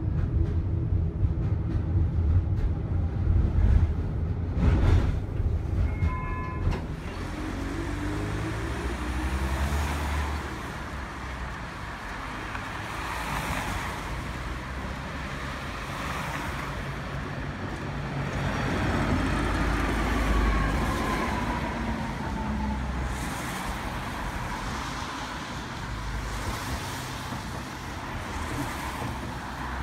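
A tram running on city track, with a strong low rumble in the first few seconds and a rising hum as it picks up speed. It then gives way to steady road traffic, with cars passing while a Tatra tram approaches and pulls up at a stop.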